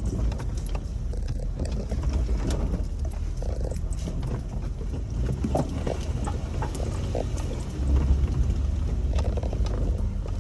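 A Jeep crawling slowly over a rough trail. The engine runs low and steady under scattered irregular knocks and clicks, and the rumble swells briefly near the end.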